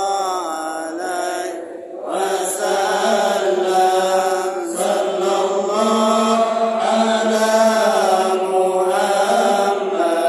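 Men's voices chanting a devotional Islamic chant together in a slow, sustained melody. The chant dips briefly about two seconds in, then comes back fuller and louder.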